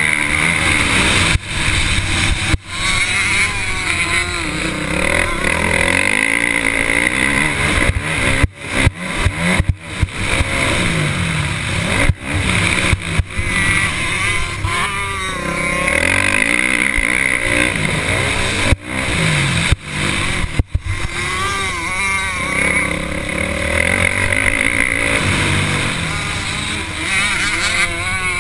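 Motocross dirt bike engine heard from on board, revving up and down as the rider works the throttle around the track. The sound drops off sharply several times, as when the throttle is chopped.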